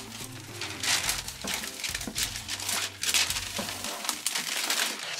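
Peel-and-stick vinyl wallpaper crinkling and rustling as it is handled, peeled from its backing and smoothed onto the wall, over soft background music that stops about four seconds in.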